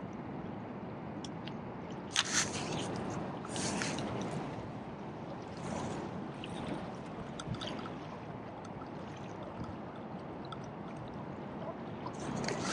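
Water sloshing and splashing, with a few brief louder splashes about two seconds in, near four and six seconds, and a longer one near the end.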